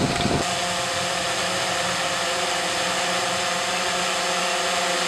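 Model airplane engine running at a steady high pitch: a constant motor whine with no change in throttle.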